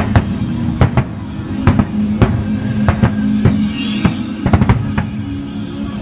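Fireworks shells bursting in a string of sharp bangs at irregular intervals, roughly two a second, over music playing.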